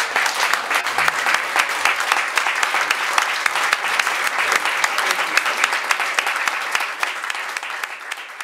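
Audience applauding: many hands clapping in a dense patter that tails off near the end.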